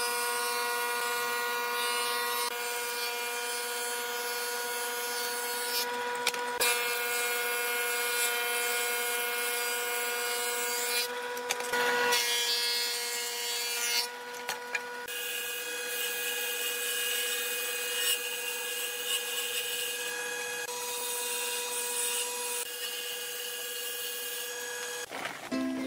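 A woodworking thickness planer running as pallet boards feed through it: a steady machine whine under the rough noise of the cutterhead shaving wood. The sound changes abruptly a few times.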